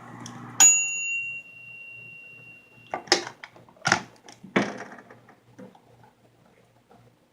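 Microwave oven's hum cuts off and a bell dings once, its ringing tone fading over about two seconds, as the timer runs out. Three sharp clunks follow a couple of seconds later, then a few faint clicks.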